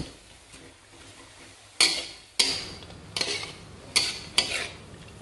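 Metal spatula scraping and clanking against a wok while stir-frying green beans and carrots. It is quiet for about two seconds, then there are about five sharp strokes, unevenly spaced.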